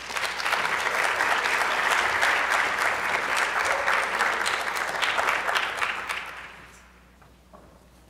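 Audience applauding, a steady patter of many hands clapping that dies away about a second before the end.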